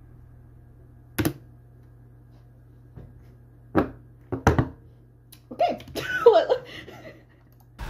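Several sharp knocks: one about a second in, another near four seconds, then two close together. A woman's brief laugh follows, over a low steady hum.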